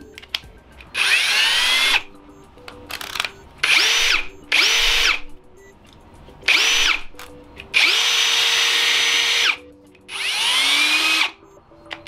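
Ryobi 18V ONE+ brushless hammer drill (R18PDBL-0) spinning with an empty chuck and no load, run in about seven short trigger pulls. Each run winds up in pitch to a steady whine and cuts off sharply; the longest lasts nearly two seconds a little past the middle.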